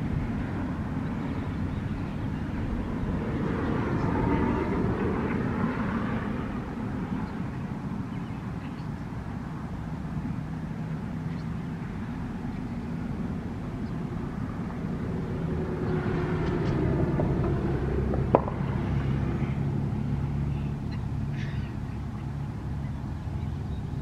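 Cars passing on a street: two swells of road noise that rise and fade, about four seconds in and again around sixteen seconds, with a single sharp knock near the second one.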